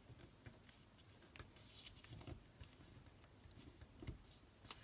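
Faint rustling and light crinkling of a sheet of paper being folded and creased by hand, with a few soft scattered clicks.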